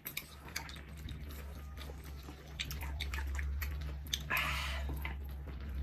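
Mukbang eating sounds: chewing, with scattered light clicks of chopsticks and spoons against a pan, over a steady low hum. A short slurp comes about four seconds in.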